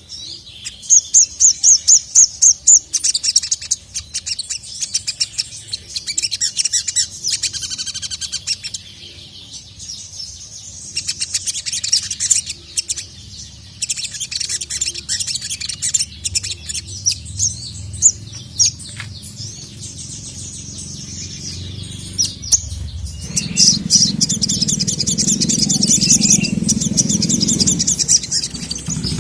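Ruby-cheeked sunbird (sogon) singing in repeated runs of rapid, high chirps and trills. A low rumble joins in about three-quarters of the way through.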